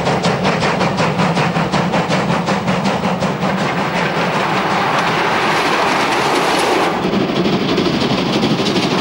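Steam locomotive running past at speed, its exhaust a fast, even beat of about six strokes a second over a steady rumble. About midway the beat is swamped by a rushing noise as the engine goes by, and it comes back near the end.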